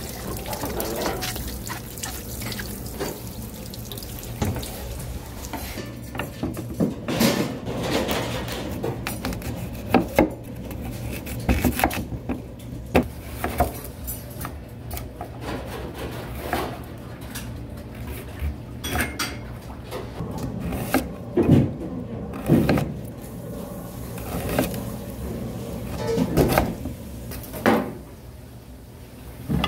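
Restaurant kitchen work: dishes, pots and utensils clinking and knocking again and again, with running water, over a steady low hum.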